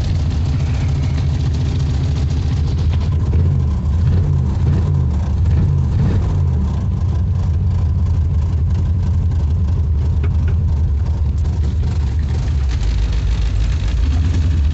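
Car engine idling steadily, its pitch wavering up and down a few times partway through.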